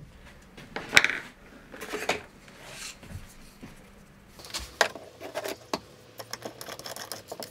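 Handling noise from Anet A8 acrylic frame parts on a workbench: scattered knocks, clacks and scrapes as plates are picked up and fitted together, then a run of small quick clicks near the end as a screw is fitted into the frame.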